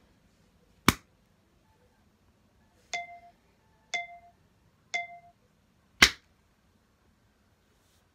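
Homemade sound effects: a sharp click, then three short ringing pings evenly a second apart, then a loud sharp hit.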